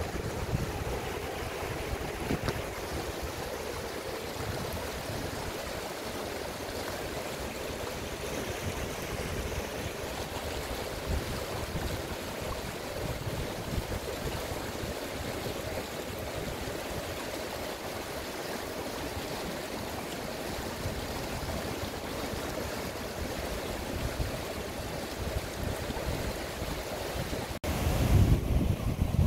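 Steady rush of a small Himalayan river's flowing water, with wind noise on the microphone. Near the end the sound breaks off suddenly and a louder low rumble takes over.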